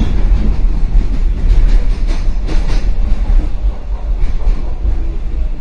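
Subway train riding along the track, heard from inside the car: a loud, steady deep rumble with rattling and clatter of the wheels and carriage, a few sharper clanks about two to three seconds in.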